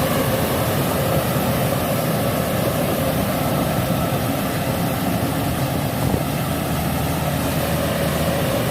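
Kubota DC70 rice combine harvester running steadily under load: a continuous diesel engine and machinery drone with a steady tone, unchanging throughout.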